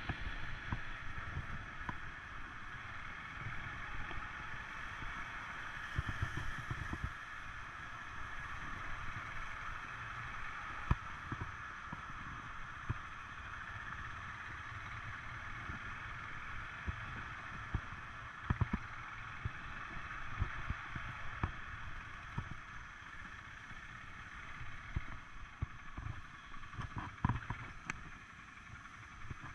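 ATV (quad bike) engine running at low cruising speed, with frequent short low knocks from the bumps of the ride.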